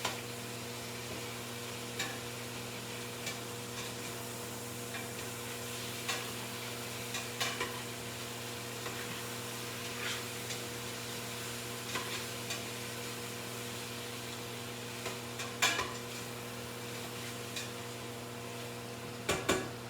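Food sizzling in a pot, with a utensil knocking and scraping against the pot now and then.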